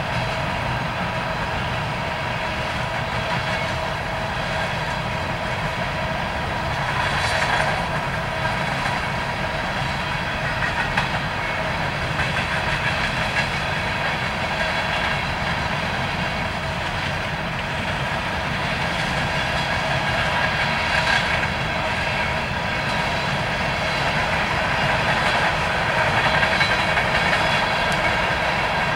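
Coal hopper cars of a freight train rolling past, a steady rumble and rattle of steel wheels on the rails. It gets louder and brighter briefly twice, about seven seconds in and again near the twenty-one-second mark. Faint steady high ringing tones run through it.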